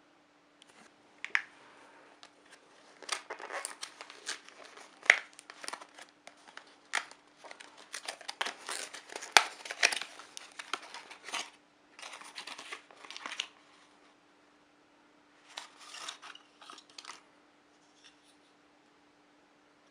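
Plastic packaging being handled by hand, crinkled and torn open in irregular bursts of crackling, with a short pause before a last burst near the end.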